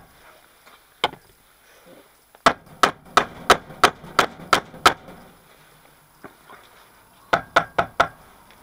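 A mallet knocking a steel hydraulic piston onto its cylinder rod, a tight fit that needs help to go on. One blow, then a run of about eight blows at roughly three a second, then a quicker run of about four near the end.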